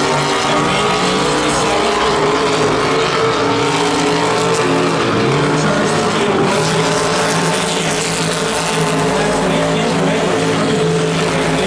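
Stock car engines running at speed around a dirt oval during a heat race. The engine notes are loud, steady and layered, drifting up and down in pitch as the cars go around.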